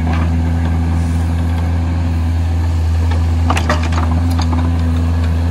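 Excavator's diesel engine running steadily, with a few short clicks or clanks about three and a half seconds in.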